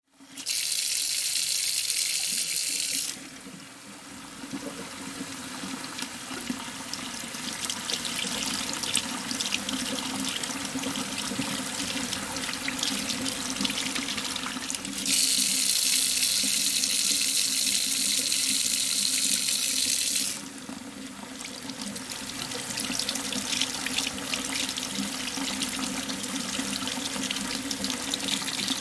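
Water running from a tap into a metal surgical tray, a continuous pour. It grows louder and brighter twice: for the first three seconds, and again from about fifteen to twenty seconds in.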